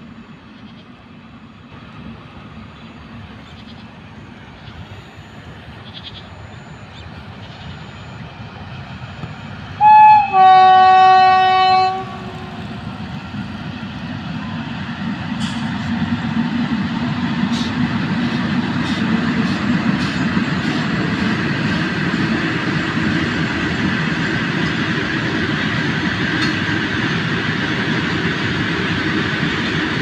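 Indian Railways electric locomotive horn, a brief toot and then a longer blast of about a second and a half, a third of the way in. After it a goods train hauled by twin WAG-9HC electric locomotives rumbles closer and passes, its wheels clicking over the rail joints. The rumble grows louder, then holds steady.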